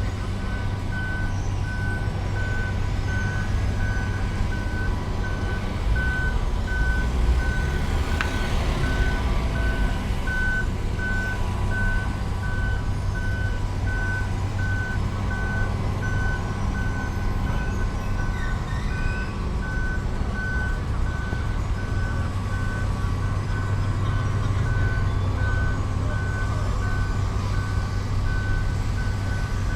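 Heavy construction vehicle's reversing alarm beeping steadily with evenly spaced single-tone beeps, over its diesel-type engine hum; the rumble grows louder for a moment about seven seconds in.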